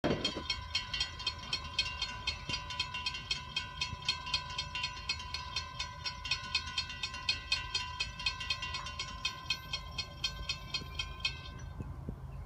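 Railroad crossing bell ringing in rapid, even strokes, about three a second, while the crossing gates come down. It stops abruptly near the end, once the gates are down, leaving a low rumble.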